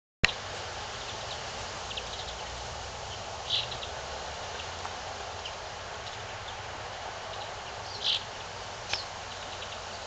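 Steady outdoor background hiss with a few short, high bird chirps, the loudest about three and a half and eight seconds in. A sharp click right at the start is the loudest sound.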